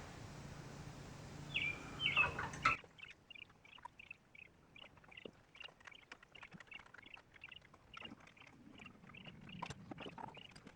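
Small birds chirping over and over in short high notes, mixed with scattered light clicks and taps. A steady low hum in the first few seconds cuts off suddenly.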